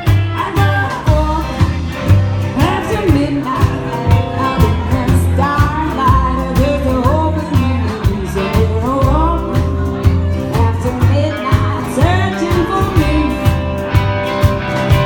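Live country band playing: a woman singing over acoustic and electric guitar, a plucked upright bass keeping a steady walking beat, and a drum kit.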